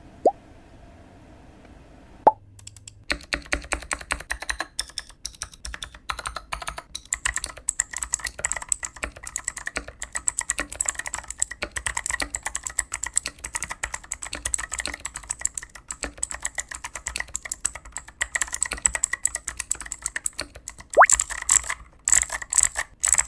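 Typing on a foam-modded CIY GAS67 mechanical keyboard with Akko Creamy Cyan switches: a couple of single key clicks, then rapid continuous keystrokes from about three seconds in, with a few louder strokes near the end.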